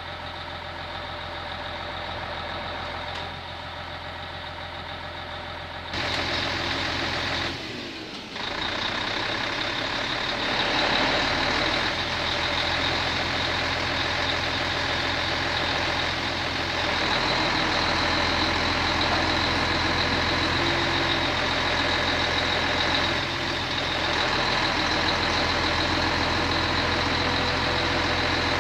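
A heavy engine running steadily, with a high steady whine above it. It gets louder about six seconds in, dips briefly, and rises again around ten seconds in.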